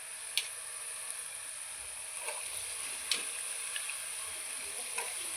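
Potatoes and peas sizzling as they go into a pan of hot tempered masala in ghee, a steady frying hiss that grows a little louder about two seconds in, with a few sharp clicks.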